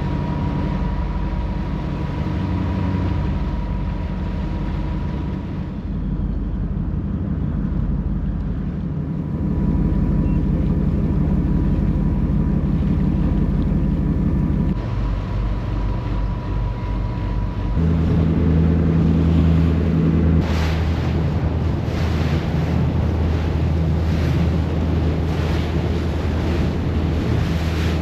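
Motorboat engine running steadily under way, its note changing twice, about halfway through and again a few seconds later. Wind buffets the microphone and waves wash against the boat, more strongly in the later part.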